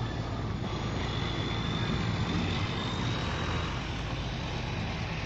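Diesel engine of a tanker semi-truck running as it rolls slowly past and away, a steady low drone.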